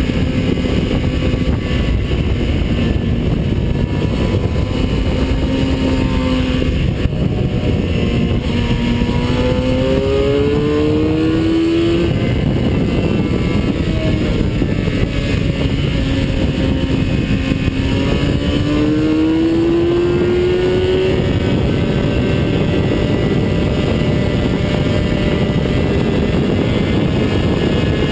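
A vehicle's engine driven hard around a race track, its pitch climbing under acceleration and falling back off-throttle, twice climbing steeply, over heavy wind and road rush on a mounted action camera's microphone.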